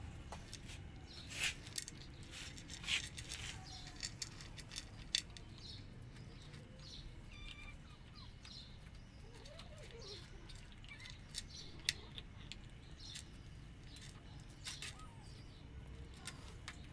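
Cats and kittens crunching dry kibble from a paper plate: irregular sharp crunches and clicks, with several louder ones in the first few seconds.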